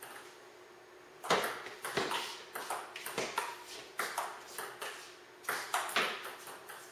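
Table tennis rally: a celluloid ping-pong ball clicking off the paddles and bouncing on the table in quick alternation, starting about a second in and stopping shortly before the end. Each click has a short echo off the garage's hard walls.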